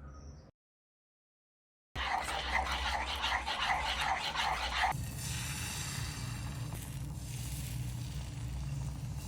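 Pancake batter being stirred or whisked in a bowl: a fast rhythmic scraping, about five strokes a second, that starts after a brief dead-silent gap and stops about five seconds in, giving way to a steady hiss.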